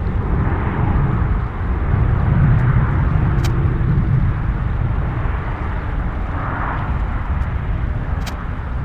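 Boeing 787-8 Dreamliner with GEnx-1B turbofans rolling along the runway after landing: a steady, heavy rumble with a hiss above it.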